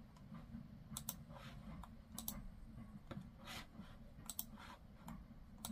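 Faint, sharp clicks of a computer mouse button, several pairs of quick clicks spread through, with a few softer rubbing sounds between them and a low steady hum underneath.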